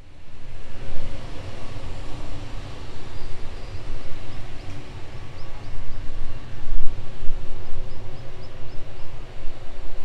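Steady low rumble of a taxiing Airbus A321neo's Pratt & Whitney PW1100G geared turbofans, heavily buffeted by gusty wind on the microphone. A few faint high chirps run in short series.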